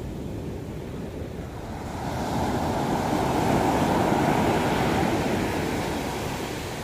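Heavy surf on a sandy beach: a big wave breaks and washes up the shore, its rush swelling about two seconds in and fading away near the end.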